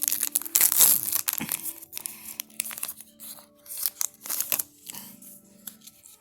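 Plastic wrapper of a trading-card pack torn open and crinkled: a dense crackling tear in the first two seconds, then lighter scattered crinkles as the wrapper and cards are handled.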